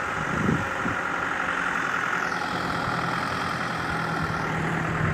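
Kubota M6040SU tractor's diesel engine running steadily as it moves a trailer loaded with rice sacks, with a low steady note growing stronger about halfway through.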